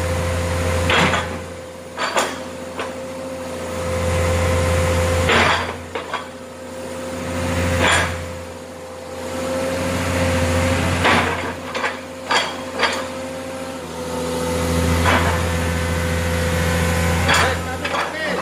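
Komatsu PC130 excavator running, its diesel engine swelling and easing in waves as the hydraulics open, close and rotate the log grapple, with a steady whine. About a dozen sharp metallic knocks and clanks from the grapple and its mounting come at irregular intervals.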